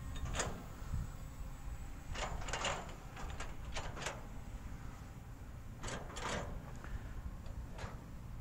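Wind buffeting the microphone in a steady low rumble, with several brief clusters of scraping, rustling noises about half a second, two to four, and six seconds in.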